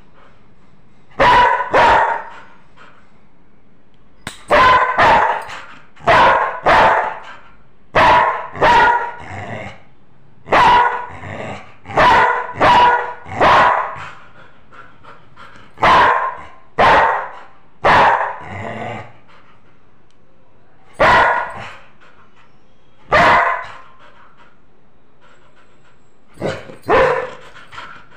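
Yellow Labrador retriever barking repeatedly. The loud, short barks come mostly in pairs or threes, with pauses of one to three seconds between.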